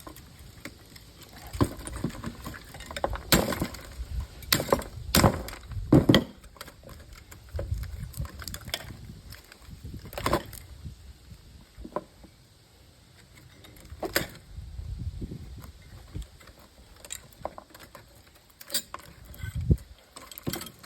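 Hammer blows and knocks on the parts of an old television being broken apart for scrap: irregular single strikes with clinks, the loudest in a cluster about four to six seconds in.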